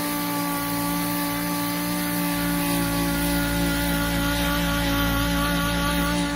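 Kobalt dual-action (random orbital) sander with an 80-grit disc running at a steady speed against a car door, a steady whine with a sanding hiss as it grinds the factory paint off over a dent.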